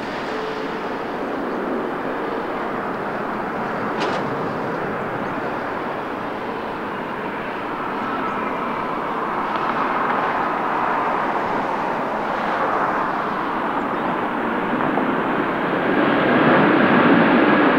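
Jet engines of an arriving Airbus A330-200 airliner, a steady rushing noise with faint steady whines that grows louder near the end. A brief click about four seconds in.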